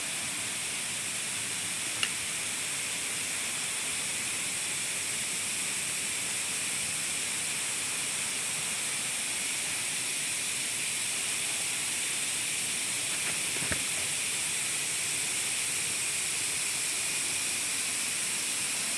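Steady hiss of rushing water from a fast river and waterfall, even throughout, with two faint clicks about two seconds in and near three-quarters of the way through.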